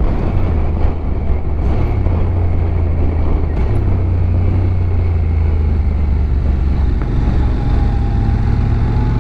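Motorcycle engine running steadily at road speed, with wind and road noise; the engine note steps up about three and a half seconds in.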